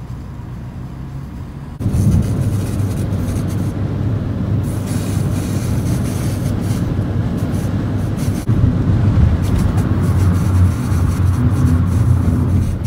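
Steady road noise inside a car cruising at freeway speed: a low drone of tyres and engine under a hiss of wind. It steps up sharply in loudness about two seconds in.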